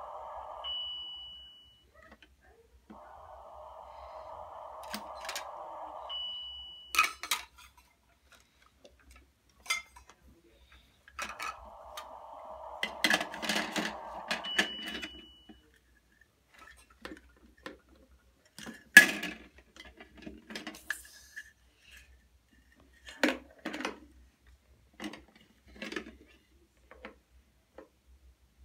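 Toy kitchen's electronic sound effects: a hissing cooking sound that plays three times for a few seconds each, with short high beeps. Around it, clatter and clinks of plastic and small metal toy dishes and utensils being handled, with a sharp knock about two-thirds of the way through.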